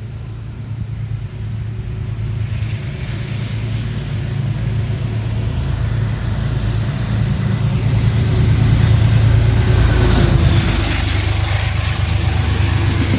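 Metro-North GE P32AC-DM locomotive running on its V12 diesel engine as it approaches and passes through without stopping, the engine's low drone growing steadily louder. About ten seconds in, as the locomotive goes by, the steel wheels add a hissing rumble on the rails that carries on while the coaches pass.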